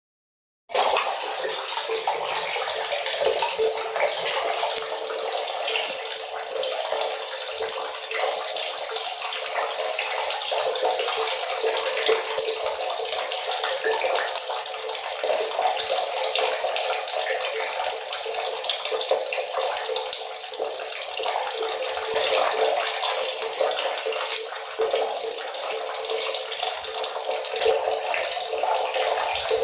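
Water running steadily from a tap and splashing, a constant hiss that starts abruptly just under a second in.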